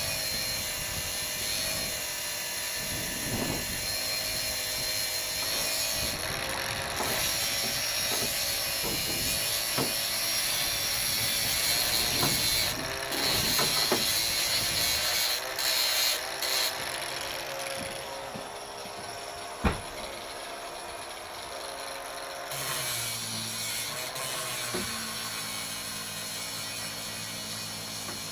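A handheld power tool running on metal in stretches with short pauses, and one sharp knock about twenty seconds in. Near the end a lower, steady hum takes over.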